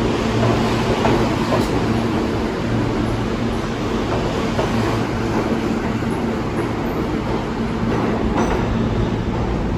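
R160 subway train running through the station, a steady rumble of wheels on rail with a low hum underneath and a few faint clicks.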